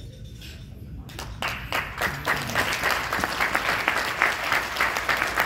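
Audience applauding: clapping starts about a second in, builds quickly and carries on steadily.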